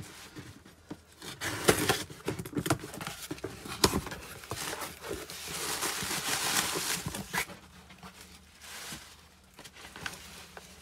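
A cardboard box is unpacked by hand: packing tape is slit and torn, with knocks and clicks as the flaps are pulled open. Around the middle comes a longer rustle and crinkle of bubble wrap and plastic packaging being handled.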